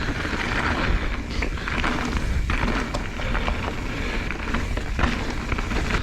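Mountain bike riding over a dirt trail: constant tyre noise with small rattles and knocks from the bike, and wind rumbling on the microphone.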